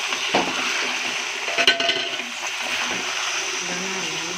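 Marinated chicken pieces frying in hot oil and ghee in a metal kadhai, a steady sizzle while a wooden spatula stirs them, with a knock of the spatula against the pan about half a second in and another near the middle.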